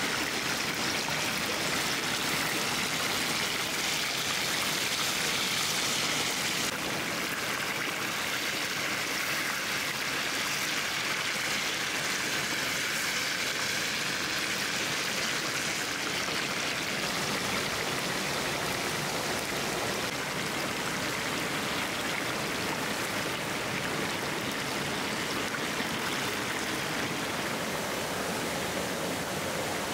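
Shallow forest stream flowing over rocks: a steady rushing of water that dips slightly about seven seconds in.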